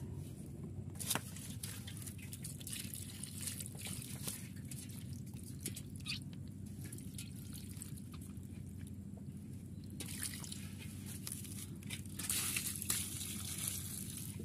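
Water poured from an aluminium pot splashing and trickling over catfish lying in wet mud, with scattered drips and small splashes. It gets louder and hissier in the last few seconds.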